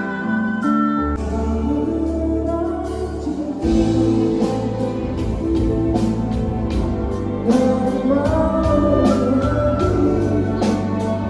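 Rock band playing live during a sound check: held keyboard chords, a bass line coming in about a second in, and the full band with drums joining about four seconds in.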